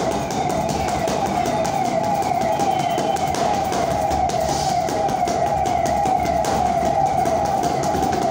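A siren-like wailing tone that wavers up and down in pitch about twice a second.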